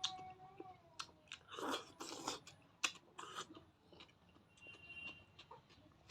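Close-miked eating sounds: a person chewing and crunching food in irregular bites, with sharp crunches and short wet bursts.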